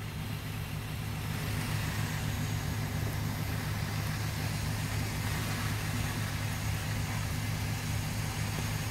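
An engine running steadily at idle, a constant low hum, with a broad hiss that grows a little louder about a second and a half in.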